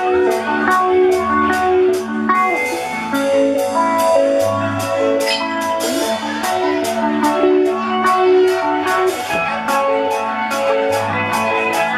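Live rock band playing: a drum kit keeps a steady cymbal beat under a bass line, electric guitar and keyboard notes in a repeating pattern.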